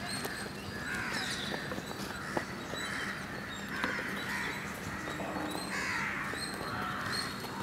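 Crows cawing over and over, a harsh call every second or so. A football is kicked with a sharp knock about two and a half seconds in.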